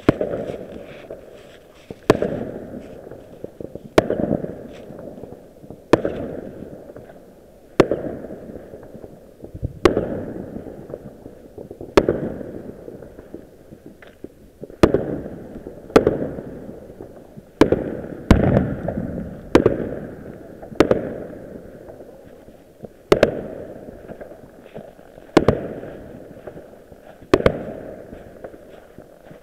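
Aerial fireworks going off in a steady string of sharp bangs, each dying away in a rumbling echo. They come about one every two seconds at first, then roughly one a second in the second half.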